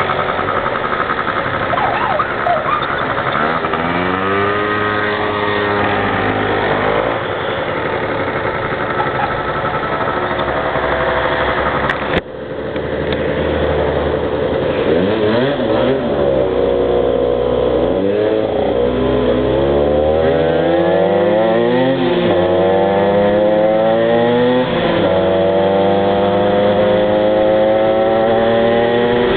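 Two-stroke engines of a Honda NSR 125R motorcycle and a Yamaha Aerox scooter running at speed. The pitch rises repeatedly as they accelerate through the gears and drops as they shift or ease off, with two engine notes crossing each other. The sound cuts out briefly about twelve seconds in, then picks up again.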